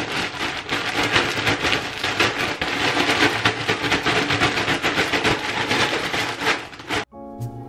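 Chocolate-coated Chex cereal pieces being shaken with powdered sugar in a zip-top plastic bag: a loud, rapid rattling and crinkling that cuts off suddenly about seven seconds in.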